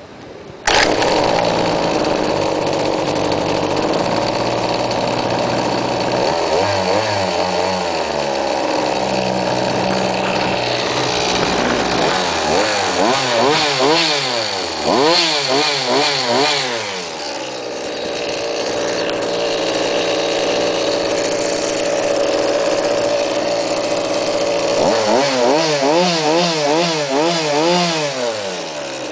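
Go-Ped Sport scooter's small two-stroke engine catching about a second in, then running and being revved in repeated quick up-and-down throttle blips, with steadier running between the bursts of revs.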